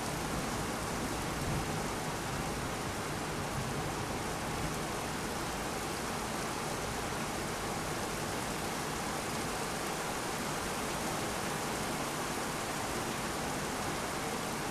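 Heavy rain falling steadily, an even hiss with no distinct thunderclap.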